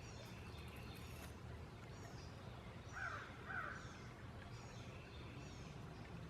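A crow calling twice, two short caws about half a second apart, over faint high chirps from small birds and a steady low hum.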